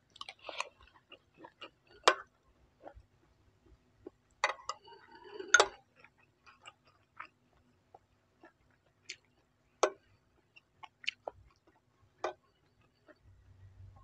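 Chewing of crisp-fried rice, with irregular clicks and taps of a metal spoon against a ceramic plate. About halfway through, a cluster of clinks rings briefly.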